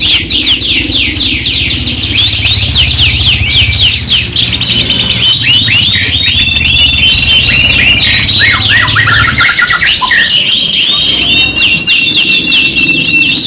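Several domestic canaries singing at once: overlapping fast trills and rapid down-sweeping notes, with held rolling whistles now and then. A low hum runs underneath and stops about nine seconds in.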